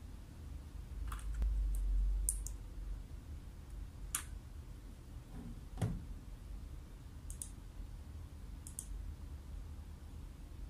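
Low steady hum of room tone with a handful of scattered sharp clicks.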